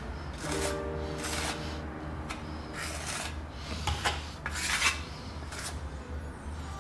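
Metal spatula scraping in a series of irregular strokes, scooping white adhesive paste from a bucket and spreading it onto the end of a cornice molding.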